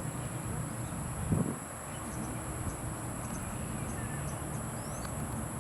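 Outdoor ambience: a steady, high-pitched insect drone with a few short bird chirps. A brief voice-like sound comes about a second and a half in.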